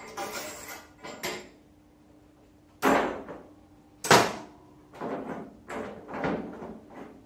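Metal clanks and scrapes from a long steel tool worked against a car's fender sheet metal. There is a scraping start, two loud knocks about three and four seconds in, then a run of lighter clanks.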